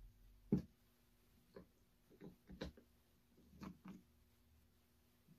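Handheld portable espresso maker being screwed together and handled: about eight irregular hard plastic clicks and knocks, the loudest about half a second in.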